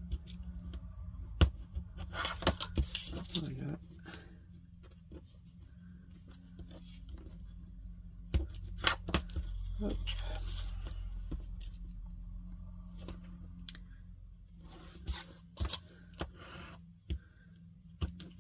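Hands working kraft cardboard and double-sided tape: the tape's backing being peeled, card rustling, and scattered sharp taps as pieces and a clear acrylic block are set down on a cutting mat, the loudest about a second and a half in.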